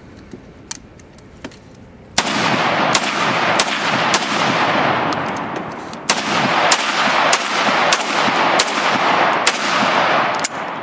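Gunfire: a string of loud shots about every two-thirds of a second, starting about two seconds in, pausing briefly near the middle, then a second string, each shot followed by a long echo that fills the gaps between them.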